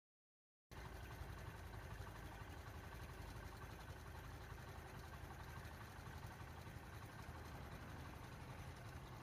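Vehicle engine idling with a steady low rumble, cutting in abruptly under a second in.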